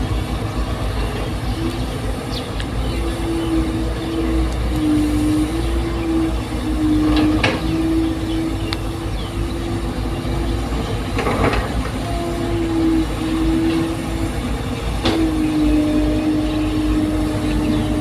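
Caterpillar excavator at work: its engine running with a low rumble and a steady whine that steps slightly up and down in pitch, with a few sharp clanks about seven, eleven and fifteen seconds in.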